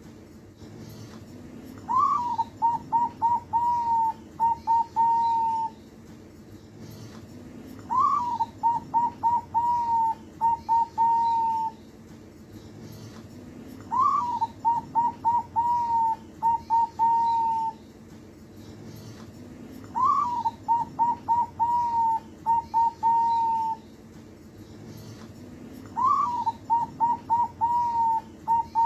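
Zebra dove (perkutut) singing its cooing song, five bouts about six seconds apart. Each bout opens with a rising note, then runs into a quick string of short coos and ends on a few longer ones.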